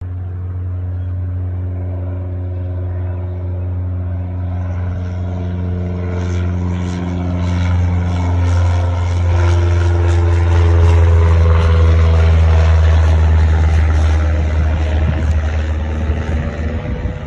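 Single-engine Cessna piston propeller plane flying over: a steady engine-and-propeller drone that grows louder, peaks about two-thirds through, drops in pitch as the plane passes, then fades.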